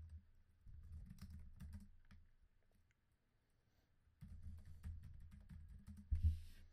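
Typing on a computer keyboard: a run of keystrokes, a pause of about two seconds, then a second run ending in a heavier key press shortly before the end.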